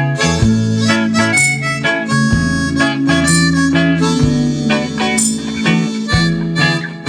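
Harmonica playing a melody over guitar and bass in an upbeat reggae-style song, with no singing.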